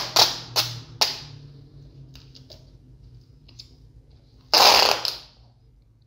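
Packing tape being handled on a melamine board: three short crackles in the first second, then a louder rasp lasting about half a second, a little past four and a half seconds in.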